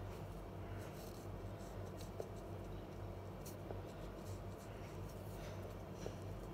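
Faint scratching of a felt-tip sketch pen rubbed back and forth on velvet paper while colouring in, over a low steady hum.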